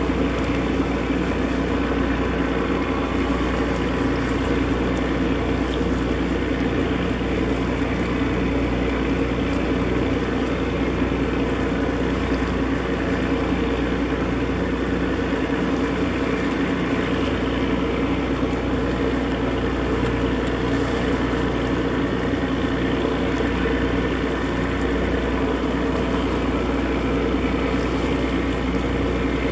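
Steady low drone of a ship's diesel engine running close by, a constant hum that does not change.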